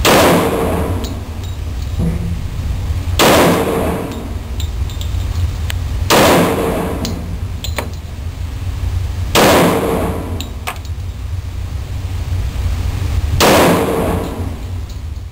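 Five single shots from a Glock 30 subcompact .45 ACP pistol, spaced about three to four seconds apart, each ringing on in the echo of an indoor range. A steady low hum runs underneath.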